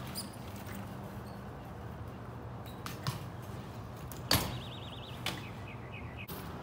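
A BMX bike landing hard on concrete after a jump: one sharp clack about four seconds in, the loudest sound, with a few lighter knocks from the bike around it, over a steady low hum.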